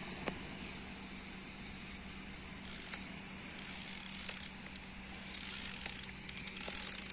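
Fishing reel being wound in repeated short spells, a hissing whirr that starts about two and a half seconds in and comes and goes, as a hooked fish is reeled in. A low steady hum runs underneath.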